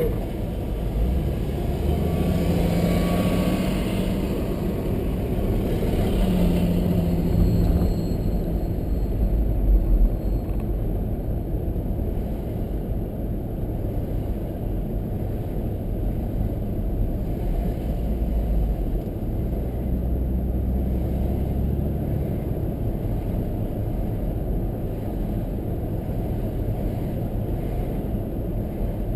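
Car driving along a road, heard from inside the cabin: a steady low drone of engine and tyre noise, with the engine note rising briefly a couple of times in the first several seconds.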